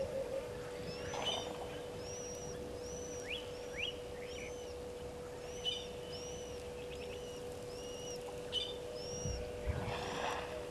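A bird repeating a short, high, arched whistled note about every three-quarters of a second, with a few quick falling chirps from other birds over a steady low hum. Two low thuds come near the end.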